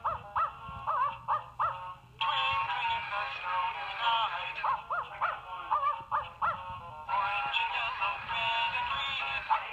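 Hallmark singing snowman toy with a puppy in a doghouse playing its recorded Christmas song: runs of short, separate dog-bark notes carrying the tune alternate with sung passages over backing music.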